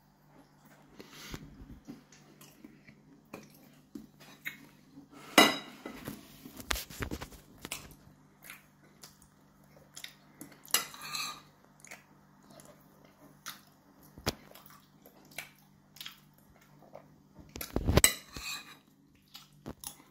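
Metal spoon clinking and scraping against a ceramic plate as porridge is scooped up, in irregular taps with the sharpest clinks about five seconds in and near the end.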